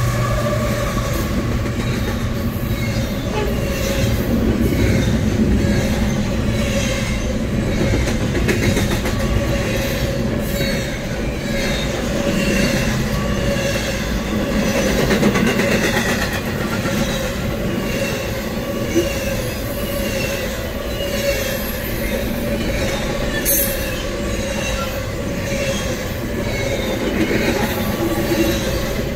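Double-stack intermodal freight cars rolling past: a steady, loud rumble and clatter of steel wheels on rail, with a steady tone held above it throughout.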